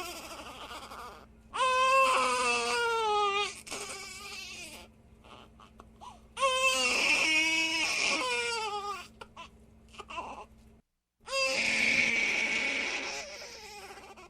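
Baby crying in three long wails, each falling in pitch, with whimpers and catching breaths between them. A brief dead gap comes just before the third wail.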